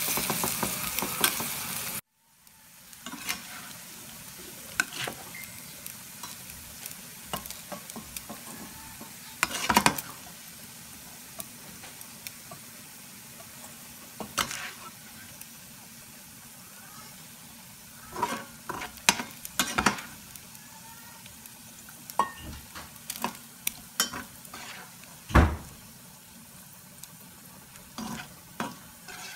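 Diced chicken frying in a stainless-steel skillet: steady sizzling, with the scrape and clack of a metal slotted spatula against the pan. A louder sizzle at the start cuts off abruptly about two seconds in, then quieter frying runs on with scattered scrapes and a sharp knock near the end.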